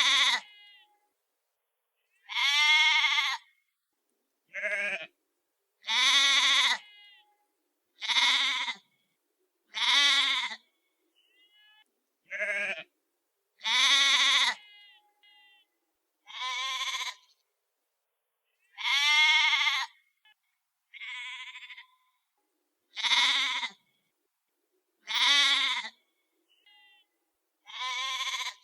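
Sheep bleating: a series of about fourteen separate baas, each half a second to a second and a half long, spaced by short silences, some fainter than others.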